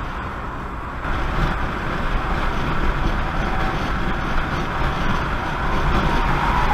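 Steady road and engine noise of a moving car, heard from inside the cabin through a dashcam microphone. It steps up louder about a second in, where the driving changes to highway speed.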